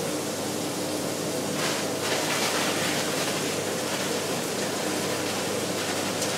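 Green beans and diced carrot, celery and onion frying in macadamia nut oil in a pan: a steady sizzle, a little stronger about two seconds in.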